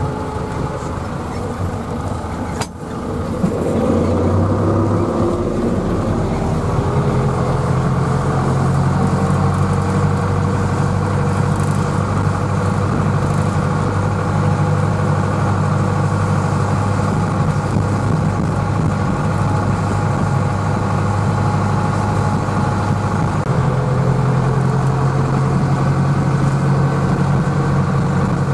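Tractor engine running steadily, heard from inside the cab while driving. About three seconds in there is a brief click and a short dip, then a rising whine climbs for a few seconds before the engine settles again.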